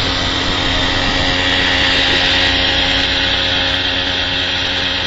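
A steady, loud mechanical noise with a constant hum running under it, unbroken throughout.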